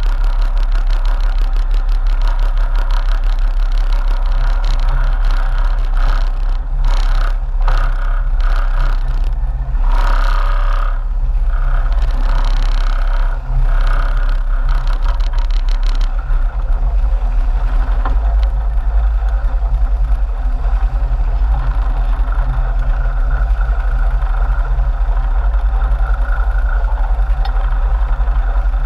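A sportfishing boat's engines running with a steady, deep drone. From about six seconds in to about sixteen, gusty rushing noise comes and goes over it.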